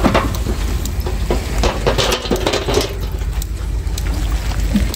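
An engine idling with a steady low hum. Over it, a cluster of metallic clanks and rattles about halfway through, as the hanging scale's metal pan and chains are handled.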